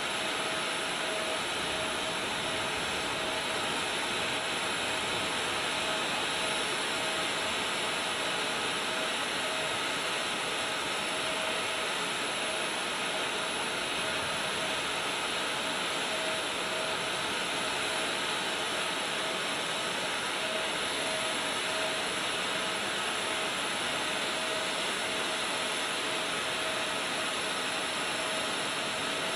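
Jet turbine engine running steadily: an even rush with a constant whine that does not change.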